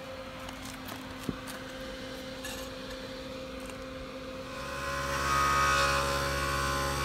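An air compressor starts up about four and a half seconds in and runs with a steady hum, supplying air to inflate a freshly mounted scooter tire and seat its beads. Before it starts, one light knock from handling the wheel, just over a second in.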